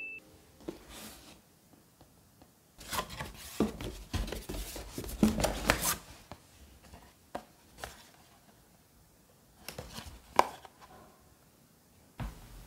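Cardboard packaging handled by hands: a few seconds of rustling, scraping and light knocks as a small blind box is pulled out of a packed display carton, then a handful of single taps.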